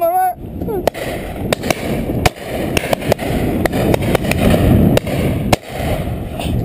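Shotguns firing on a driven pheasant shoot: a dozen or so sharp cracks, scattered irregularly, from other guns along the line, over a steady low rumble of wind on the microphone.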